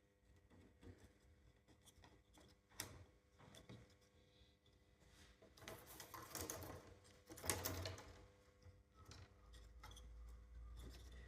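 Faint, scattered clicks and taps, with a louder patch of clustered clicks and rustle midway.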